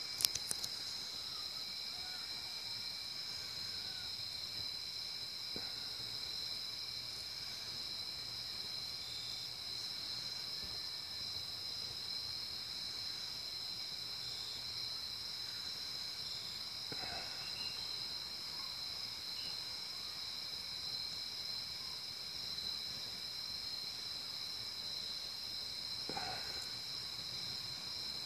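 Crickets trilling steadily in an unbroken chorus at two high pitches, with a brief cluster of clicks about half a second in.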